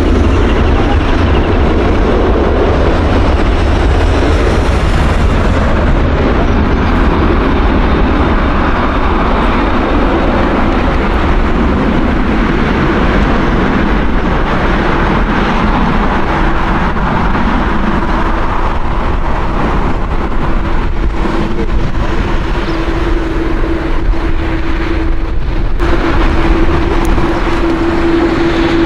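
Jet engines of a Boeing 787-9 airliner running as it taxis slowly onto the runway: a loud, steady noise with a heavy low rumble. A steady whine comes in about halfway and grows louder near the end.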